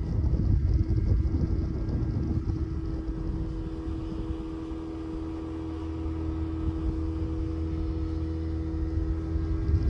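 A motorboat under way: the boat motor's steady hum rides over a loud, rough low rumble. The rumble is roughest in the first few seconds; after that the hum holds even.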